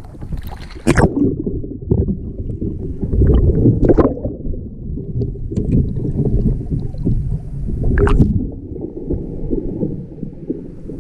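Water splashing and gurgling around a kayak as it rolls over and comes back up. The sound is dull and low throughout, with a few sharp splashes about a second, four seconds and eight seconds in.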